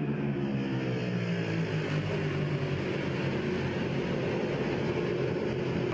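Superbike engines running hard at high revs, a steady engine note whose pitch slowly sinks over the first few seconds and then holds.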